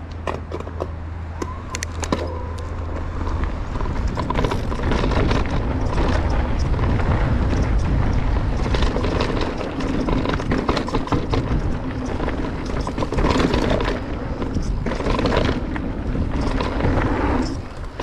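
Cube Stereo Hybrid 160 electric mountain bike ridden down a rough trail: rumbling tyre and wind noise with rapid, irregular clattering from the battery and battery cover knocking in their worn holder. The louder riding starts about four seconds in, after a steady low hum.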